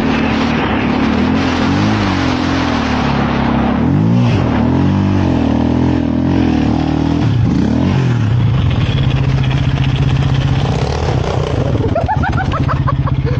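Snowmobile engine running at speed, its pitch swinging up and down as the throttle is worked, then holding steady. Near the end a person shouts.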